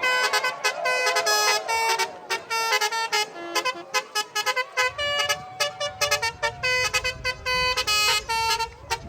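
Telolet multi-tone bus air horns playing rapid runs of short notes, one note after another, with long tones gliding up and down behind them. A low rumble comes in about five seconds in.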